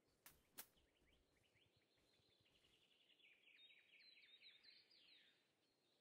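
Faint bird song: a quick run of short descending notes that grows louder and stops about five seconds in. Two sharp clicks come just before it.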